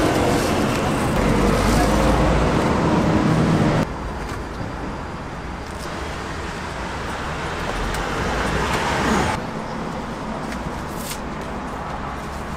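Steady street traffic noise from passing road vehicles. About four seconds in it drops abruptly to a quieter, even background.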